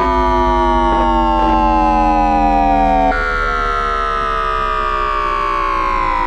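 Siemens IGBT-VVVF traction inverter and motors of an NYC Subway R160B, picked up electromagnetically by an inductor: a chord of electronic tones falling steadily in pitch as the train brakes in synchronous multi-pulse PWM mode. About three seconds in the tones switch abruptly to a different set as the inverter steps to another pulse mode.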